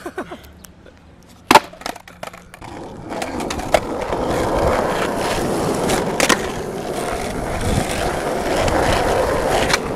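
Skateboard: a sharp clack of the board about a second and a half in, then from about three seconds in the wheels rolling steadily, with a few clicks and clacks on top.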